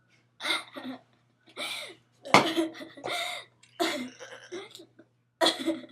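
A person coughing in a series of short bursts, about six in the span, the sharpest and loudest a little over two seconds in.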